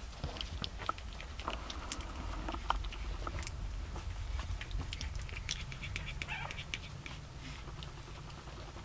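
A litter of young puppies scuffling and mouthing one another on bedding, a busy scatter of small clicks and scuffs.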